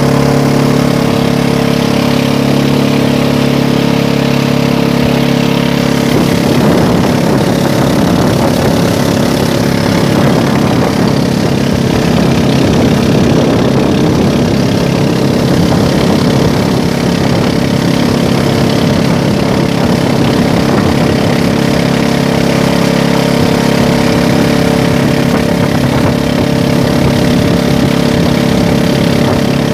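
Small pump boat's engine running loudly and steadily as the boat travels under way, an even droning hum.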